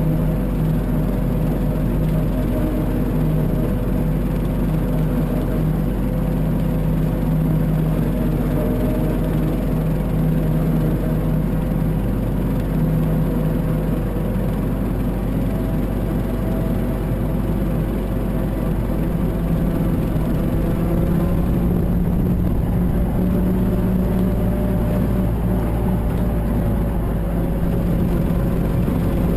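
Mahindra 1526 tractor's three-cylinder diesel engine running steadily, its pitch rising a little about two-thirds of the way through and then holding.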